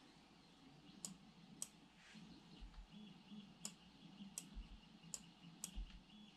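Six sharp single clicks at a computer, unevenly spaced, as rate values are keyed into the setup software.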